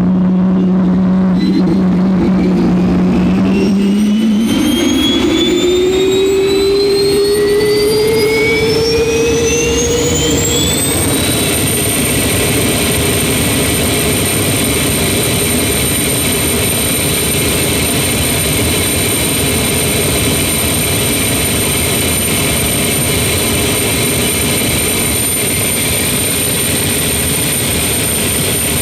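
Jet engine spooling up: a high whine climbs steeply in pitch for about ten seconds along with a rising lower hum, then levels off into a steady, high-pitched whine over a continuous rush.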